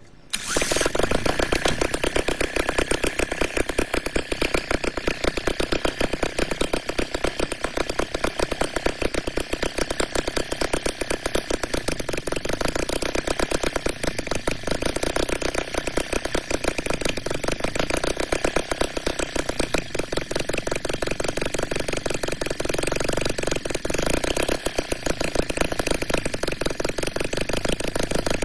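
2.2cc twin-cylinder four-stroke evaporative water-cooled gasoline model engine, spun by a cordless drill on its flywheel, catching almost at once and then running steadily with a fast, even firing beat.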